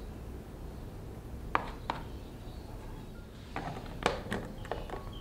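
Plastic lunch box being closed: two light clicks, then near the end a quick run of sharp plastic clicks and snaps as the lid's side clip latches are pressed shut.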